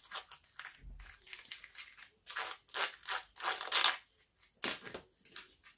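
A thin stick scraping and stirring thick structure paste in a small plastic tub, in irregular short scrapes, a few louder ones in the middle.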